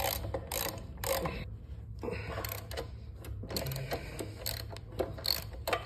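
Hand wrench and ratchet loosening the rear suspension linkage bolts of a Honda XR650L: irregular metallic clicks and taps of tool on bolt.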